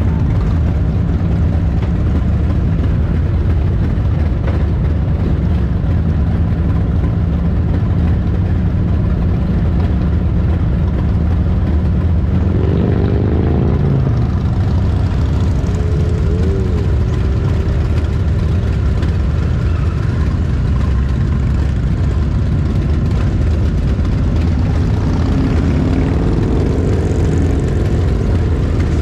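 A motorcycle engine idling steadily close by, with other motorcycles pulling away and accelerating past, their engine notes rising about halfway through and again near the end.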